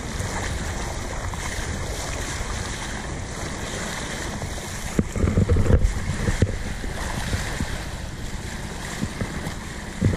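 Bow wave rushing and splashing along the hull of a sailboat under way, with wind on the microphone; louder low buffeting comes about five seconds in and lasts a second or so.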